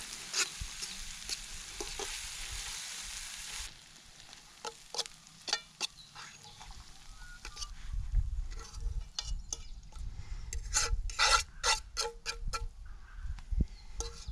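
Fish and noodles sizzling in a frying pan, a steady hiss that cuts off abruptly about three and a half seconds in. Then a utensil scrapes and clicks against the pan in many short strokes as the food is tipped out onto a plate.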